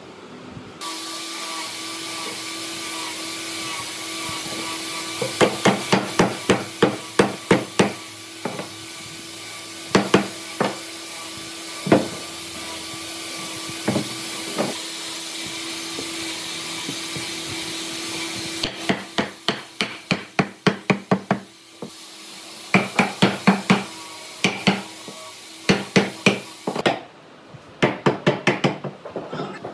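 Hammer striking wood in quick runs of blows, about four or five a second, with a few single strikes in between. A steady machine hum with a low tone runs beneath the first part and cuts off suddenly about two-thirds of the way through.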